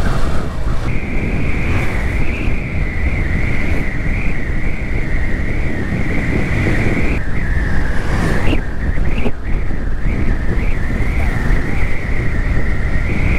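Yamaha FZS V3 motorcycle on the move: a dense rush of wind and road noise over the engine. A steady high-pitched whine comes in about a second in and breaks off briefly around the middle.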